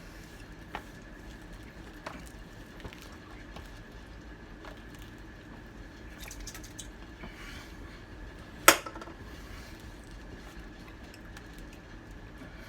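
Eating and food-handling sounds at a table: soft squishy and rustling noises with a few light clicks, and one sharp click a little past the middle, over a steady faint hum.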